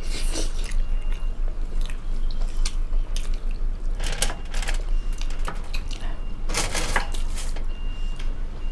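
Close-up chewing and lip-smacking of people eating steamed chicken momos, with scattered small clicks and a few louder rustling bursts, near the start, about four seconds in and about six and a half seconds in. A steady low hum runs underneath.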